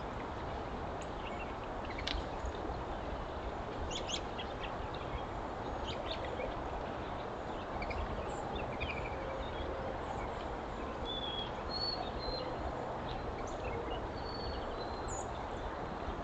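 A steady hiss of background noise, with a few faint, short chirps from small birds and a few light clicks scattered through it.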